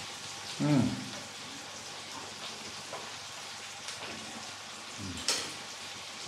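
Steady sizzle of food frying in a pan. A brief louder hum-like sound comes just under a second in, and a sharp knock about five seconds in.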